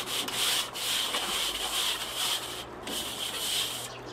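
Soapy sponge scrubbing the inside of a Weber Master-Touch kettle barbecue's enamelled steel bowl: a steady scratchy rubbing that breaks off briefly about two and a half seconds in.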